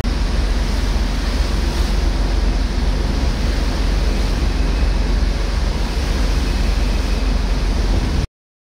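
Steady rush of wind and choppy sea water heard from the open deck of a moving ferry, with wind buffeting the microphone and a faint low drone underneath. It cuts off suddenly near the end.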